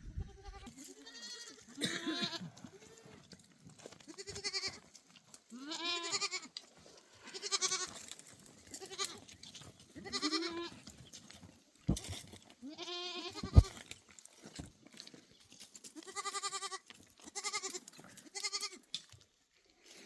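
Goats bleating over and over, about a dozen quavering calls that come one after another at different pitches. A sharp knock about thirteen seconds in is the loudest sound.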